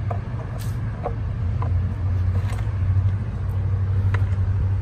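Diesel engine of a Bobcat mini excavator running steadily, supplying hydraulic power to the pipe-bursting machine, growing a little louder about two seconds in. A few light clicks and knocks of hands working the machine sound over it.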